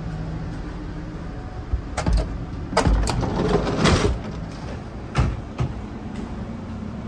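An Amfleet I railcar's powered end door sliding open, then knocks and clatter as someone crosses the steel gangway plates between cars, with two more knocks a little after five seconds. A steady low hum lies under it all.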